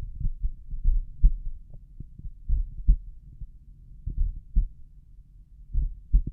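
Slow resting human heartbeat heard through a stethoscope over the tricuspid valve: low lub-dub thumps in pairs, about one beat every 1.6 seconds, four beats in all.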